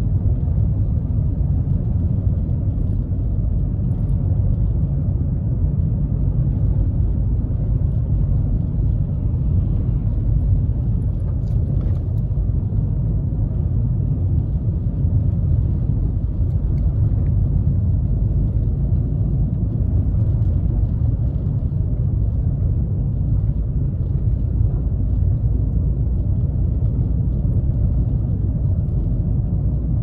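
Steady low rumble inside a Suzuki Kizashi's cabin as it drives on a snow-covered road: tyre and road noise from its Michelin X-Ice3+ winter tyres, with the engine underneath. A single faint click sounds about twelve seconds in.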